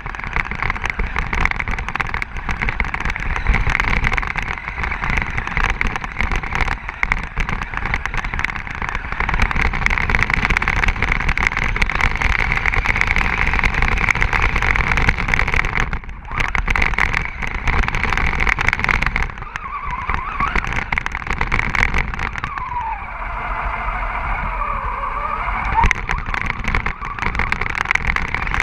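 Radio-controlled truck driving over snow, heard from a camera mounted on it: a steady motor whine over a rushing noise of tyres churning snow. It drops out briefly about halfway, and later the motor's pitch sweeps down and back up a few times.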